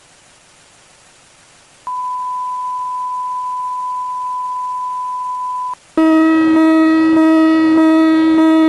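Emergency-broadcast alert tones over a faint static hiss. About two seconds in, a steady, single-pitched beep sounds for about four seconds and stops. A second later a loud, buzzy, lower alarm tone with many overtones starts and carries on, marking the interruption of regular programming for an emergency message.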